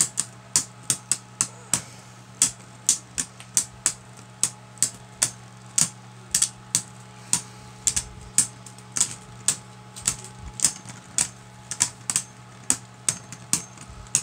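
Two Beyblade Burst tops, Cyclops C4 and Guardian Kerbeus, spinning against each other in the stadium's centre. Their plastic rims knock together in a steady run of sharp clicks, about three a second and unevenly spaced.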